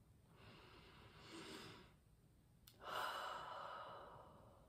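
A woman taking a slow, deep breath: a soft inhale, then a louder out-breath through the mouth like a sigh that starts suddenly about three seconds in and fades away.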